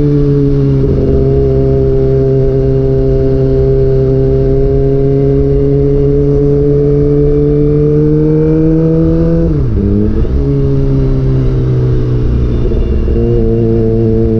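Kawasaki ZX-25R's 249 cc inline-four running through a DX Generation GPR aftermarket exhaust with the dB killer removed, under way on the road. The engine note climbs slowly for about nine seconds, drops sharply at a gear change about ten seconds in, then settles slightly lower and holds steady.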